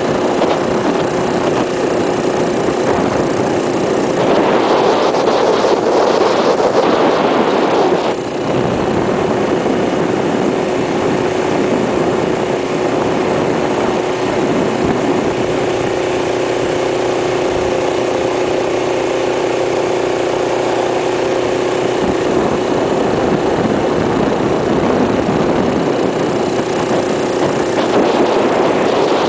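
1972 Rupp Roadster minibike's Tecumseh single-cylinder engine running steadily at cruising speed, heard from on board, with wind rushing over the microphone that grows louder between about four and eight seconds in.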